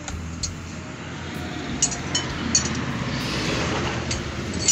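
A few light metallic clinks over a steady low hum.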